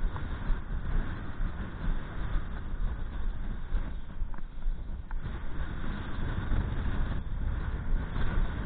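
Strong wind buffeting the microphone in uneven gusts: a heavy low rumble that swells and drops every second or so.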